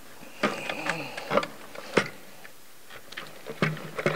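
Upper intake plenum of a Jeep 3.6L V6 being rocked and lifted off its studs by hand: a string of plastic clicks and knocks, the loudest about two seconds in, with a brief high squeak near the start.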